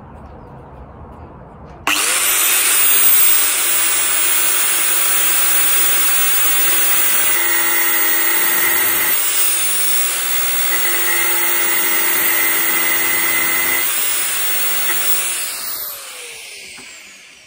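Small grinder switched on about two seconds in, cutting into a seized injector sleeve on a diesel fuel injector to split it off, a steady high whine with a harder pitched note twice as the disc bites. It winds down and spins to a stop near the end.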